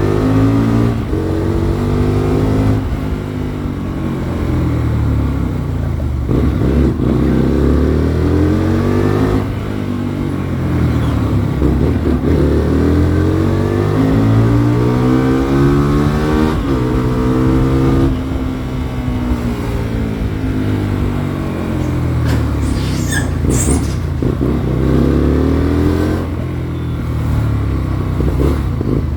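Hyosung Comet GT250's V-twin engine running, its revs climbing and falling back again several times, with wind noise rushing over the microphone.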